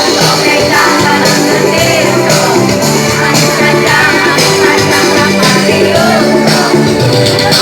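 A choir singing over loud musical accompaniment with a steady beat.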